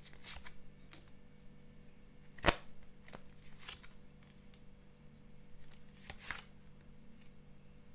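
Fortune-telling cards being handled and laid on a table: soft rustles and scattered light clicks, with one sharp tap about two and a half seconds in.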